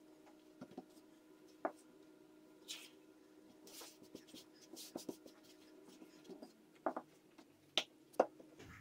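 Floured hands patting and brushing flour over a stack of thin rolled dough sheets on a silicone baking mat: soft scattered rustles and light taps, with a few sharper taps near the end, over a faint steady hum.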